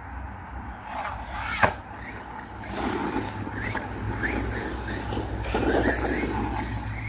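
Brushless-converted 1/10 scale RC truck driven in short throttle bursts: the motor and gears whine up and down in quick chirps, with rough scrabbling noise from the drivetrain and tyres. A single sharp knock comes about one and a half seconds in.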